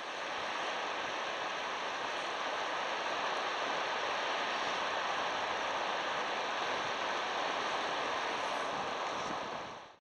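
Steady rushing beach ambience of surf and wind on a sandy shore, with no distinct events; it stops near the end.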